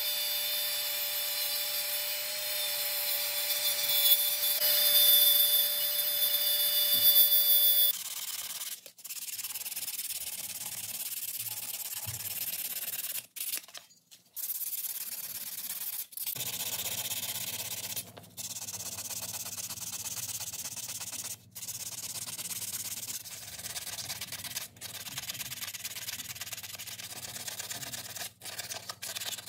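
A small high-speed rotary tool with a sanding disc whines steadily as it grinds the metal housing of an antique drill, then stops abruptly about eight seconds in. After that comes sandpaper rubbed by hand over the metal, a steady scraping broken by short pauses every few seconds.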